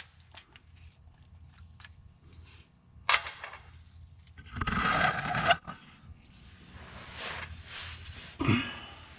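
Hand tools clicking and scraping on the bolts of an RE5R05A automatic transmission's valve body as they are loosened, with a sharp metallic burst about three seconds in and a longer rasping one around five seconds.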